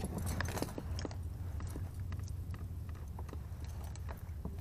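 Scattered small clicks and crackles of fishing gear being handled aboard a kayak, over a low steady rumble.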